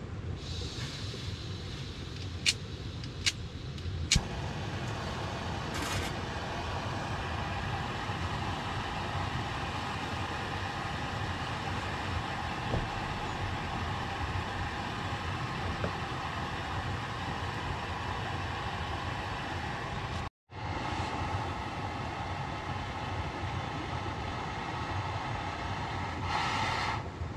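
Three sharp clicks, then a gas-canister camping stove's burner catching and hissing steadily.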